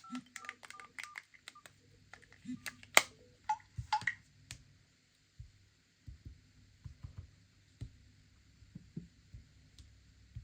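Phone keypad tones: a run of short two-note beeps, about three a second, as keys are pressed. A few sharper clicks and beeps follow, then faint taps from handling the phone.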